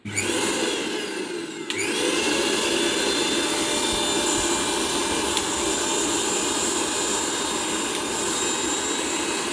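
Prestige Iris 750 W mixer grinder's motor switched on, spinning up, then jumping to a higher speed about two seconds in and running steadily with a tremendous noise.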